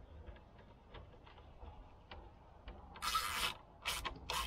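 Hand tool working among parts in a car's engine bay: faint clicks, then a loud half-second scrape about three seconds in and two shorter scrapes near the end.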